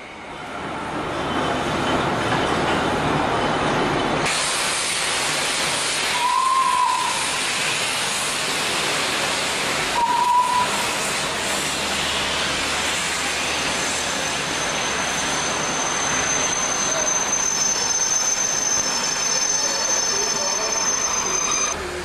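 Steam locomotive hissing loudly as it vents steam, with two short whistle notes about four seconds apart.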